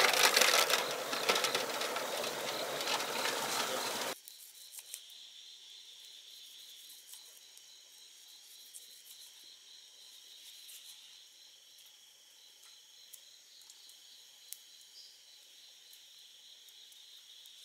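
Water splashing and sloshing loudly for about four seconds as snails are rinsed in a wire colander and tipped into a pot of water, then a sudden cut to a quiet night chorus of crickets trilling steadily, with scattered faint ticks.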